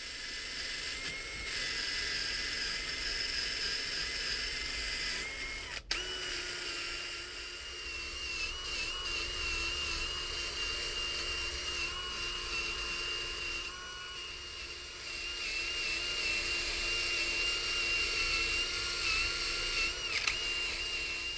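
Cordless drill spinning a wire wheel against an outboard's aluminium lower unit: a steady motor whine with the scratchy hiss of the wire bristles, scrubbing off bottom paint and loose aluminium eaten away by electrolysis corrosion. The whine breaks off briefly about six seconds in, then carries on a little higher in pitch.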